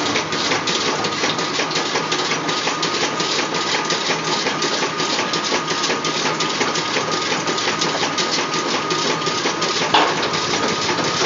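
Automatic incense-stick making machine with a bamboo-stick auto feeder running: a fast, even clatter of mechanical clicks over a steady high whine, with one louder knock near the end.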